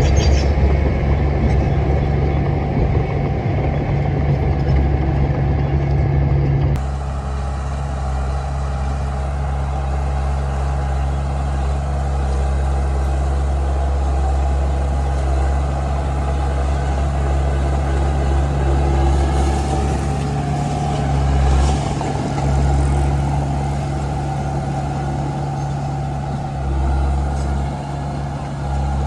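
Komatsu D31P crawler bulldozer's diesel engine running steadily with a deep drone. The sound changes abruptly about seven seconds in, and the engine swells briefly a couple of times later on.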